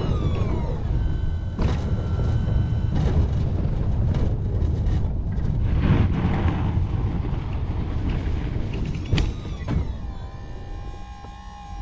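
Heavy vehicle's engine running as a 16 ft Sno-Power rear plow is dragged backwards, scraping and pushing snow. A few sharp clunks, and a whining tone that glides down in pitch about a second in and again near the end.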